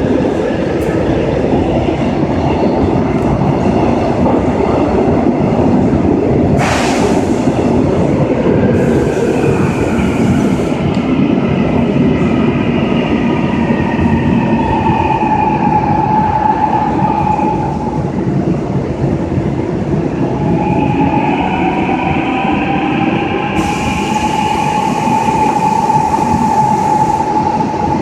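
Gwangju Metro Line 1 train running, heard from on board: a loud, steady rumble of wheels on rail. From about the middle on, high squealing tones waver in pitch above it, strongest near the end, with a short hiss about a quarter of the way in.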